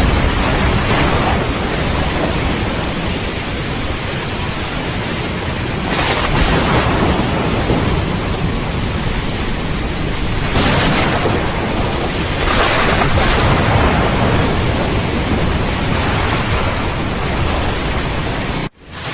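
Heavy rain falling steadily through a thunderstorm, with thunder rumbling and swelling up several times. The sound cuts out for an instant near the end.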